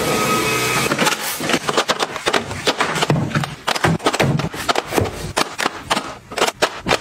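A clear acrylic grid divider scrapes as it is pushed into a drawer for about the first second. Then come quick, irregular clicks and taps as plastic makeup compacts are set into its acrylic slots, hard plastic on acrylic.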